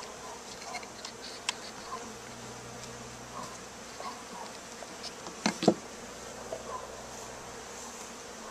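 Honey bees buzzing steadily around brood comb being handled, with a couple of sharp knocks about five and a half seconds in.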